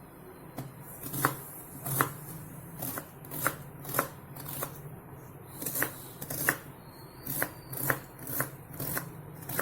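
Onion being chopped in a Tupperware Smart Chopper: a run of short, sharp chopping strokes, one about every half to three-quarters of a second, starting about a second in.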